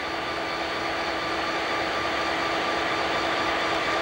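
Diesel-electric locomotives running close by, a steady engine drone with a fixed whine, growing gradually louder.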